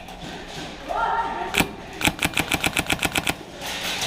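Airsoft gun shooting: one single shot, then a quick full-auto burst of about a dozen shots at roughly ten a second.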